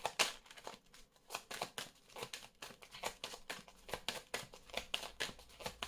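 A deck of Lenormand cards shuffled by hand: a quick, irregular run of soft card clicks and snaps.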